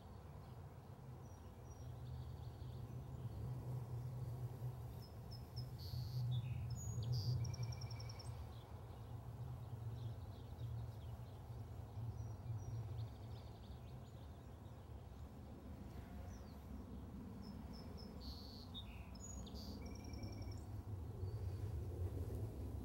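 Outdoor ambience: a steady low rumble with birds chirping in two short spells, about six seconds in and again near twenty seconds.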